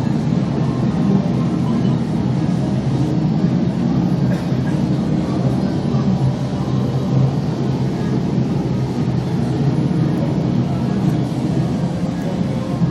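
Steady, loud din of a game arcade: machine music and noise blending into one continuous wash.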